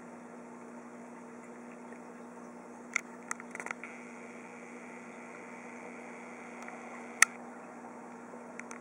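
Steady hum and hiss of a running aquarium's air pump and bubble curtain. A few sharp clicks come about three seconds in, and a single louder click about seven seconds in.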